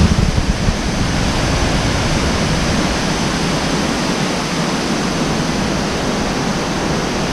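Elephant Falls, a large, wide waterfall, pouring: a loud, steady rush of falling water.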